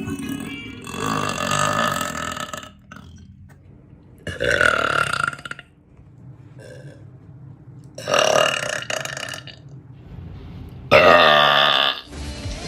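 A woman burping loudly four times, each burp lasting one to two seconds, with the last one the loudest.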